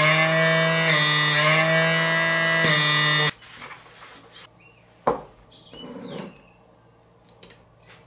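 Small DC pump motor running with a steady whine, its pitch bending briefly as the tubes are pinched, then stopping suddenly about three seconds in. Faint handling and wiping noises follow, with a sharp knock about five seconds in.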